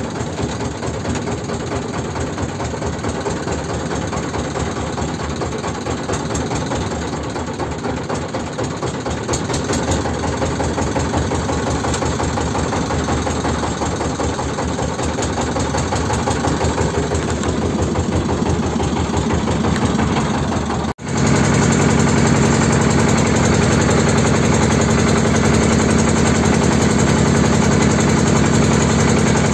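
A small engine running steadily. About two-thirds of the way through the sound breaks off for an instant, and after that the engine is louder and steadier.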